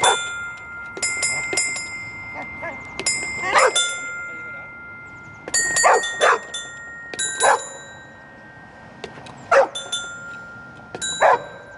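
A playground's musical floor tiles sounding bell-like chimes as a dog steps on them, each tone starting abruptly and ringing on for a second or two, overlapping one another. The dog barks about six times between the chimes.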